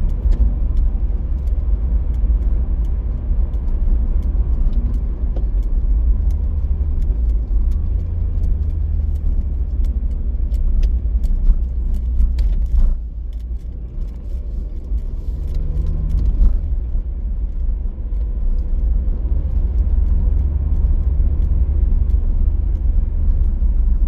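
A car driving along a road, heard from inside the cabin: a steady low tyre and road rumble with scattered small ticks, dipping briefly in level about halfway through.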